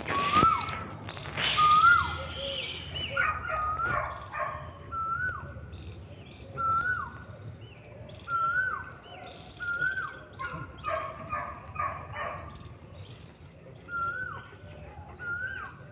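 German Shepherd dog whining in short high cries, each rising and then dropping sharply, repeated about every one to two seconds, louder in the first two seconds, while held for mating.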